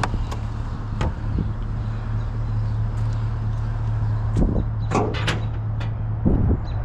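A vehicle running with a steady low hum, with a few sharp clicks and clunks over it, most of them bunched about four and a half to five and a half seconds in.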